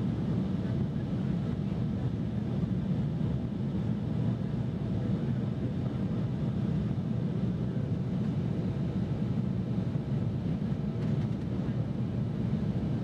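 Steady low rumble of a twin-engine jet airliner in flight, heard inside the passenger cabin: engine drone and rushing airflow with no distinct events.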